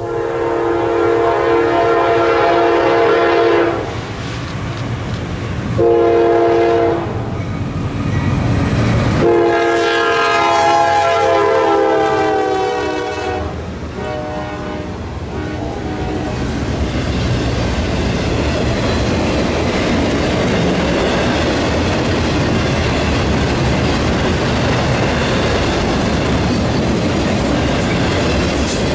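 Nathan K5LA horn on a Norfolk Southern GE AC44C6M locomotive sounding a long blast, a short one and another long one as the intermodal train approaches. From about halfway through, the locomotives have passed and the train's cars roll by in a steady rumble and clatter.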